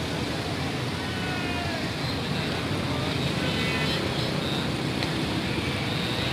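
Steady street traffic noise: a continuous wash of vehicle engines and tyres, with faint, brief pitched sounds in the background.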